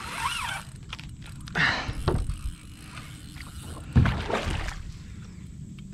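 Handling noises in a plastic fishing kayak: a short rustling, splashy burst about two seconds in and a sharp knock on the kayak about four seconds in, over steady low background noise.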